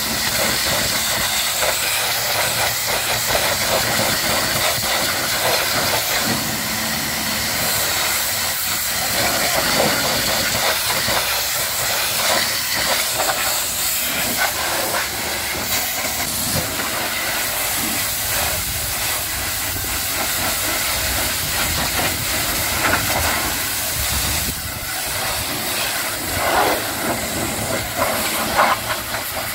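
High-pressure washer spraying water onto a truck, a steady spray that runs without a break.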